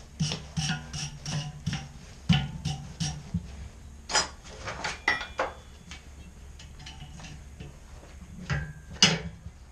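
Wire brush scrubbing a freshly forged and twisted steel S-hook, in quick strokes about three a second for the first few seconds, then scattered clicks and knocks of the metal being handled, with one sharper knock near the end.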